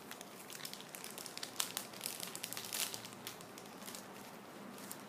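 Thin clear plastic packaging bag crinkling as it is handled, a quick irregular run of crackles that thins out after about three and a half seconds.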